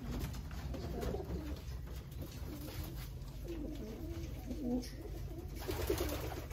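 Homing pigeons cooing in their loft, several low, warbling coos overlapping one after another, with a brief rustle near the end.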